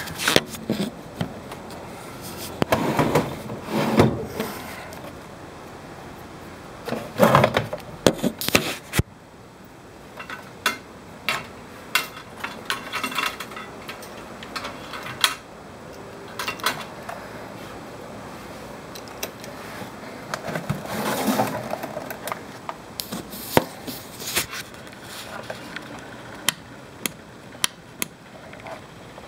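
Handling noise: irregular clicks, knocks and rustling as plastic equipment cases and power cables are moved about, coming in short bunches rather than as any steady machine sound.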